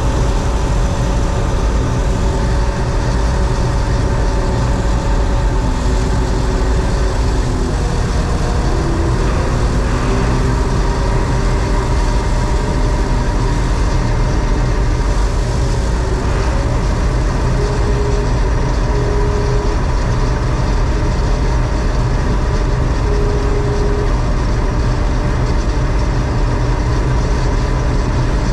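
John Deere 4400 combine running steadily: a loud, constant low engine drone with the whine of machinery layered on top. A few of the tones slide in pitch about eight to ten seconds in.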